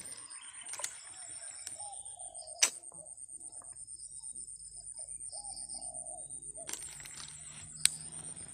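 Outdoor ambience with a steady high-pitched drone, a few short arching calls and three sharp clicks, the loudest about three seconds in and near the end.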